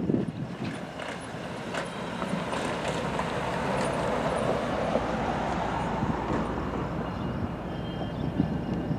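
Freight train cars rolling past on the rails: a steady rumble and rush of wheel noise that swells a little through the middle, with a few sharp clicks in the first two seconds.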